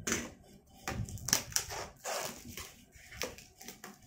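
Cardboard box and plastic wrap rustling and scraping as a boxed wall clock in its cardboard frame is slid out of its box: a run of irregular crinkles, scrapes and small knocks.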